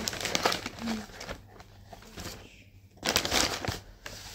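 Brown paper takeout bag rustling and crinkling as hands rummage inside it, with a louder burst of crackling about three seconds in.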